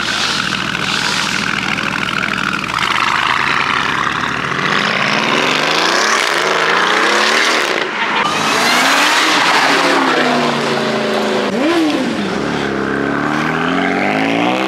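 Car engine revving hard, its pitch climbing steadily and dropping back three times, over a loud din of other engines and exhaust.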